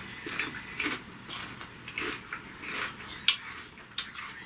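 Mouth chewing Pringles potato crisps, an irregular run of crisp crackles and small mouth clicks, with a couple of sharper clicks near the end.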